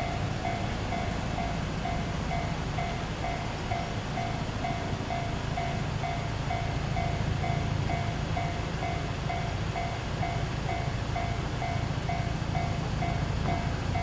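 Japanese level-crossing warning bell ringing in an even, rapid repeating rhythm, signalling that the crossing is closed for an approaching train. A steady low rumble runs beneath it.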